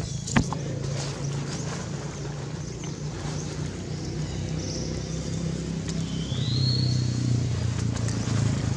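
A steady low engine-like hum that grows a little louder a bit past halfway. There is one sharp click about half a second in, and a short rising squeak a little past halfway.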